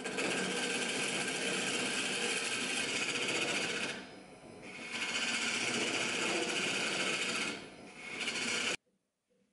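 Hand chisel cutting a spinning maple blank on a JET wood lathe: a steady cutting noise of the tool shaving wood over the running lathe. It eases twice briefly where the tool comes off the cut, then cuts off suddenly near the end.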